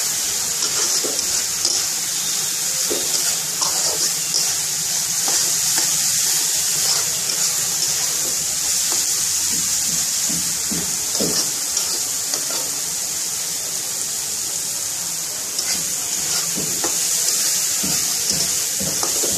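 Spice paste and shrimp sizzling steadily as they fry in an oiled wok, with short scrapes of a spatula stirring now and then.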